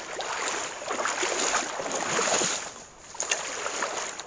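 Shallow river current rushing and splashing close to the microphone, swelling and easing, with a brief lull about three seconds in.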